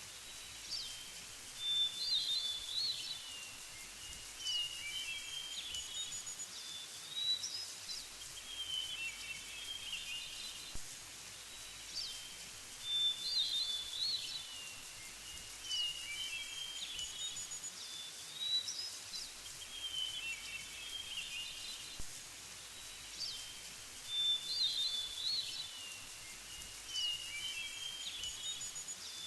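A songbird singing short phrases of quick, high chirping notes every couple of seconds, over a steady faint background hiss.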